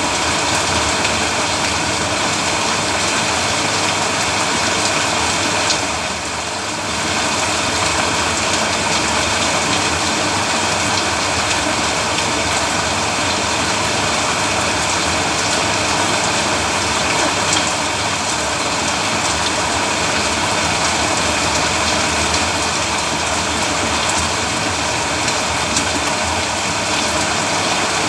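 Steady rain falling on a road, a continuous dense hiss that eases slightly for a moment about six seconds in.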